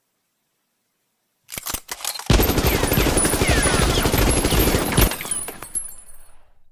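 Automatic gunfire: a few separate shots, then about three seconds of continuous rapid fire that stops abruptly and dies away.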